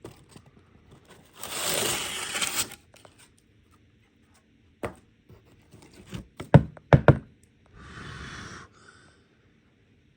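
Packaging being torn and crinkled open, then a run of sharp knocks and clicks as small hard objects are handled and set down.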